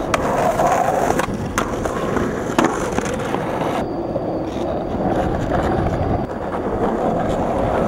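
Skateboard grinding along a ledge, then urethane wheels rolling on rough asphalt, with a few sharp clacks from the board and trucks. The sound changes abruptly a little under four seconds in.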